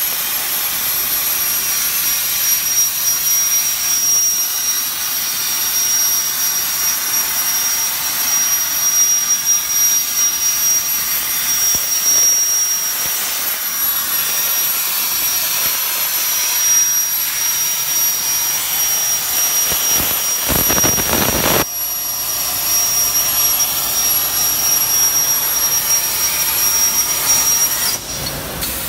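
CNC plasma cutter cutting steel plate: a loud steady hiss of the plasma arc with a thin high-pitched whine over it. A brief deeper rush comes about two-thirds through, and near the end the whine stops and the hiss drops as the arc goes out.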